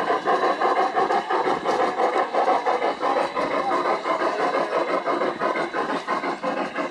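Accucraft 1:20.3 scale Rio Grande steam locomotive model No. 476 running along the track with a steady, quick, even chuff.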